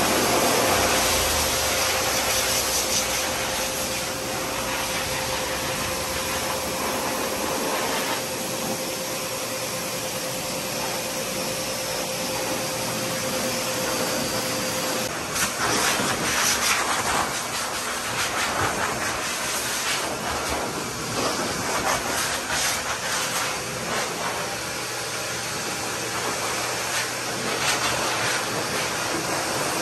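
High-velocity pet dryers blasting air through a wet dog's long coat: a steady rushing hiss with a motor whine that stops about halfway through, after which the blowing turns gusty and uneven.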